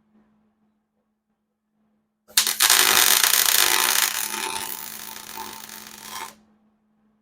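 Electric welding arc crackling for about four seconds as a nut is welded onto a washer, starting abruptly about two seconds in, fading somewhat and cutting off near the end; the welder judges the heat a little hot for the washer. A faint steady hum runs underneath.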